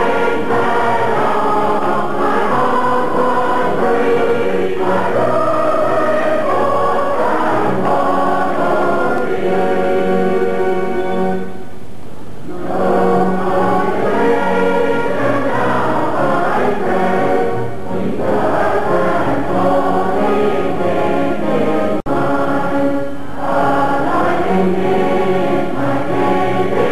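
A large congregation singing a hymn together, many voices in full chorus, with a short break between lines about twelve seconds in.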